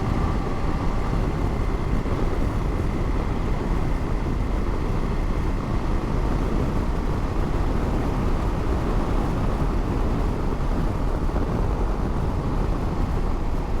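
Motorcycle riding at a steady speed: the engine and rushing wind, heard through an in-helmet microphone.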